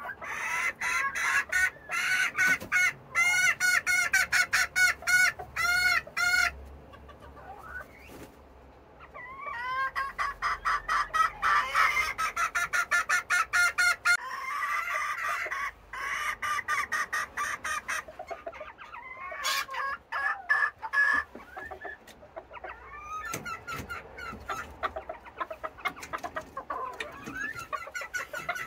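A group of Serama bantam hens clucking and cackling noisily in quick repeated calls, with a brief lull about seven seconds in. This is the racket of hens shut in their coop at letting-out time in the morning.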